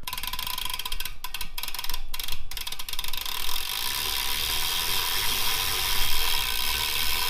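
Odyssey Antigram BMX cassette hub freewheeling, its pawls ratcheting in a fast clicking buzz. It breaks off briefly a few times in the first couple of seconds, then runs as one continuous buzz.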